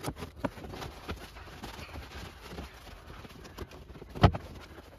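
Fabric rustling with irregular light clicks and knocks as the nylon straps and plastic buckles of a seat cover are handled and pulled, with one sharper knock about four seconds in.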